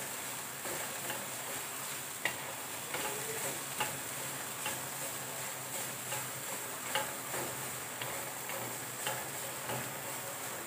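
Grated coconut being dry-roasted and stirred in a pan over a low flame: a faint steady sizzle, broken by irregular short scrapes and clicks of the stirring utensil against the pan.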